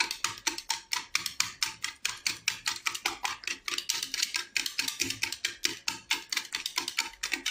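Fork beating eggs and sugar in a bowl, a fast, even clicking of the tines against the bowl at about seven strokes a second.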